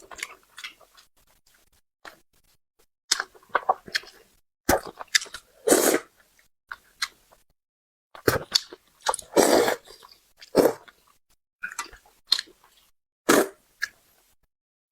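Close-miked mouth sounds of eating spicy braised carp: wet chewing and smacking in irregular bursts with short pauses between, a few bursts longer and louder.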